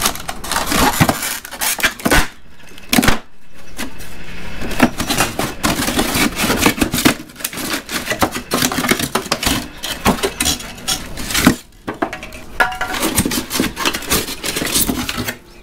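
Foam top panel being worked loose and pulled off the sheet-metal chassis of a window air conditioner: continuous irregular scraping, creaking and clattering, with a few brief pauses.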